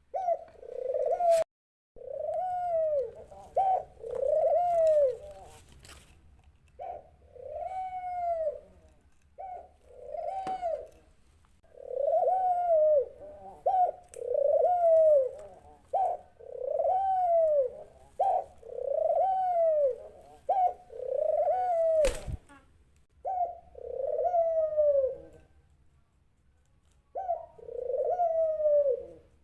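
A dove cooing over and over: a string of arched coos, each rising and falling within about a second, with short notes between them and brief pauses. A sharp click sounds near the start and again about three-quarters of the way through.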